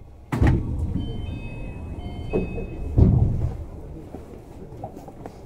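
Inside a Tama Toshi Monorail 1000 series car: a sudden heavy low thump about half a second in and another about three seconds in, with rumbling between them. A few short high tones sound between the two thumps.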